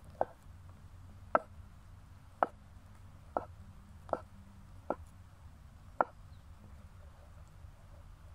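Kitchen knife slicing a sausage into rounds on a bamboo cutting board: seven sharp knocks of the blade striking the board, about one a second, stopping about six seconds in.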